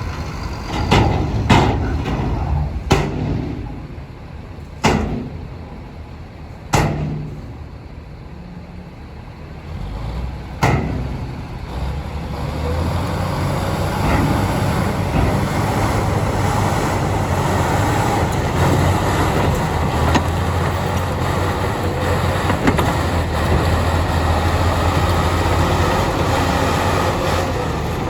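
Bulldozer working a stone fill: a series of sharp metallic clanks and knocks in the first ten seconds or so, then the diesel engine running steadily with a low rumble, louder from about twelve seconds in.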